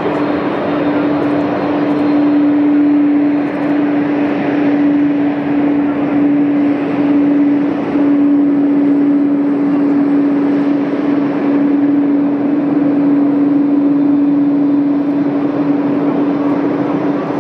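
McDonnell Douglas MD-11 trijet's jet engines running at taxi power as the airliner rolls past: steady jet noise with a steady low hum through it.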